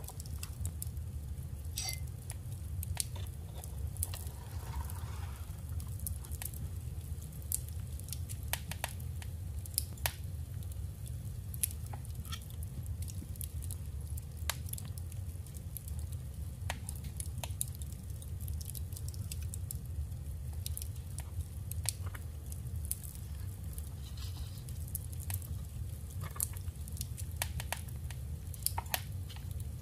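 Irregular small clicks and taps of paper and craft materials being handled, over a steady low hum.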